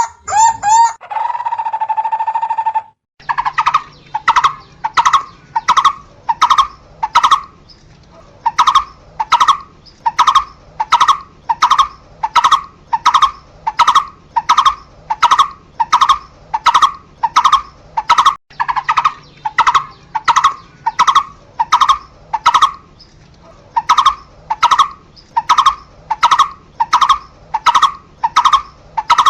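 Asian barbet calling: a long, monotonous series of evenly repeated notes, about one and a half a second. It is preceded in the first three seconds by a quicker run of notes and one held note.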